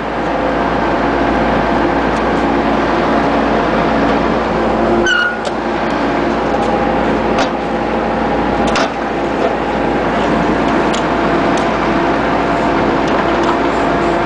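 Bobcat skid-steer loader's engine running steadily under work, with several sharp clanks scattered through and a brief falling squeal about five seconds in.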